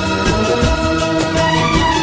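Instrumental interlude of a Bollywood film song: held melody notes over a steady percussion beat, with no singing.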